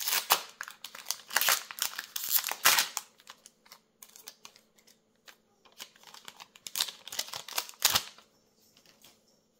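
Foil wrapper of a Magic: The Gathering collector booster pack crinkling and tearing as it is pulled out and opened by hand, in bursts over the first three seconds and again about seven to eight seconds in.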